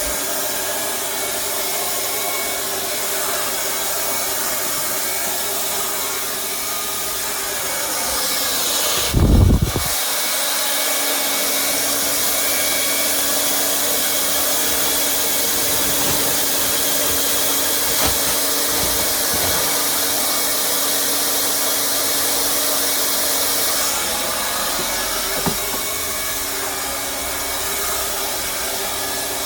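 Hot-air plastic welding gun blowing steadily while the corner seams of a plastic tray are welded. A brief loud low thump sounds about nine seconds in.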